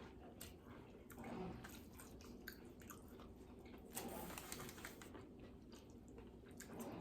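A person chewing food close to the microphone: quiet chewing with many small mouth clicks and ticks, a little louder about a second in and again about four seconds in.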